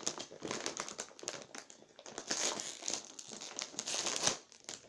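Kettle Brand potato chip bag crinkling and crackling as it is pulled open by hand, loudest about halfway through and again near the end.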